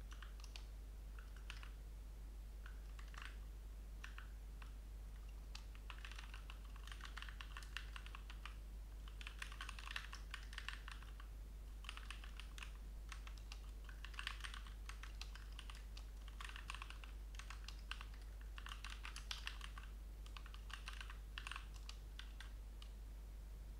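Computer keyboard typing in quick runs of keystrokes separated by short pauses, over a steady low hum.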